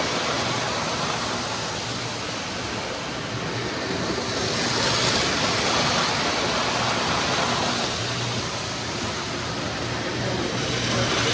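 Several postwar Lionel O-gauge electric toy trains running on a layout: a steady rumble of wheels on three-rail tubular track, with a low hum underneath.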